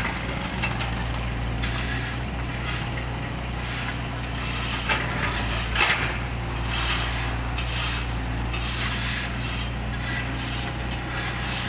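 Irregular scraping and rasping strokes of tools on the road surface, coming every half second to a second, over a steady low engine hum.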